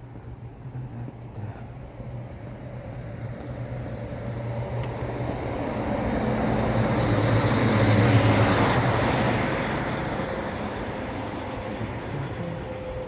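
A motor vehicle passing on the road: its engine and tyre noise build up over several seconds, are loudest about eight seconds in, then fade away.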